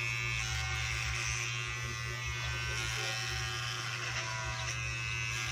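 Electric hair clipper buzzing steadily while it cuts hair along the side of the head.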